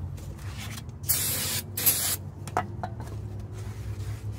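Aerosol brake cleaner sprayed onto a new brake rotor in two short hissing bursts, starting about a second in, to strip the rotor's factory protective coating.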